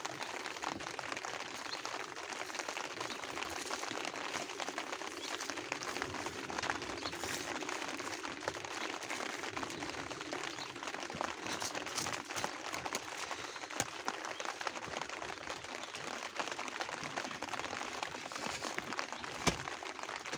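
Heavy rain falling steadily, a dense even hiss of countless drops. There is one sharp click near the end.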